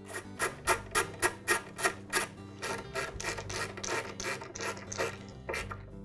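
Screwdriver driving a screw into the saw's plastic handle cover: a run of short rasping clicks, about four a second at first, then less regular, over soft background music.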